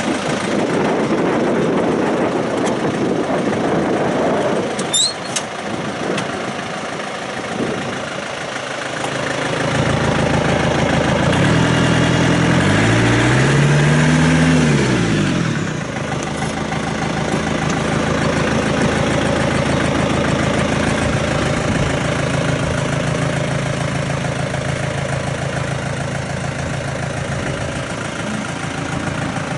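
John Deere 4700 tractor's diesel engine running. About ten seconds in it is revved up and eased back down over a few seconds, then settles into a steady idle.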